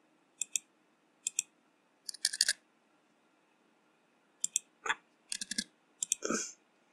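Computer keyboard typing: keys clicking in short irregular bursts with pauses between them.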